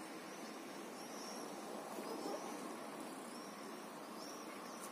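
A small bird calling with short high chirps about once a second over a faint, steady outdoor background noise.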